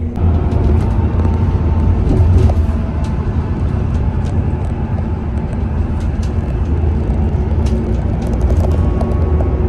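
Steady low rumble of a road vehicle in motion, with a few faint ticks and rattles over it.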